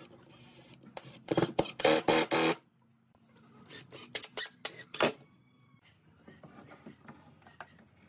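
Cordless impact driver driving screws into pine boards: a burst of rapid hammering about a second in, lasting just over a second, then a few shorter bursts around the middle as the screw is set.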